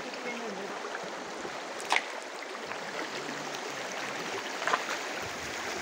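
Shallow stream running over stones: a steady rush of water, with one short sharp click about two seconds in.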